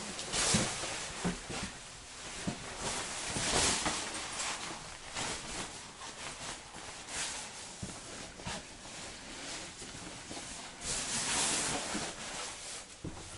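Intermittent hissing and rustling, with scattered light knocks and clicks, from someone moving about inside a train cab.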